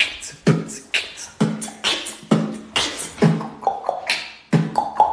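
Mouth beatboxing: a steady beat of about two hits a second, low kick-drum sounds alternating with sharp snare-like snaps. A held higher note joins over the beat near the end.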